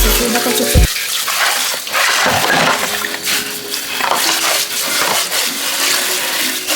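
Kitchen tap running water into a sink, a steady rushing, with background music faintly under it.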